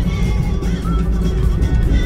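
Background music with a heavy low end.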